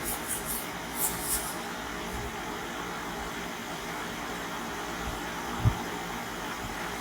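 Steady, even whir of a fan running, with a few faint clicks about a second in and a single soft thump near the end.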